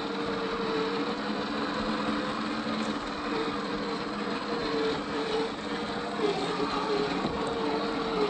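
Electric motor and gearbox of a 1/10-scale Boom Racing BRX02 Defender D110 RC crawler whining steadily as it creeps along a dirt track, the pitch wavering slightly with the throttle.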